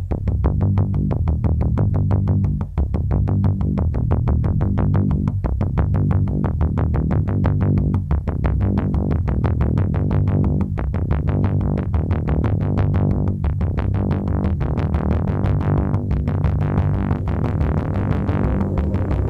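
Background electronic music with synthesizer and keyboard over a steady, fast beat.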